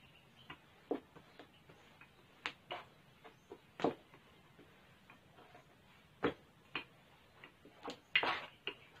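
Wooden rolling pin knocking and clicking against the table as dough is rolled out: irregular sharp knocks, the loudest about one, four, six and eight seconds in.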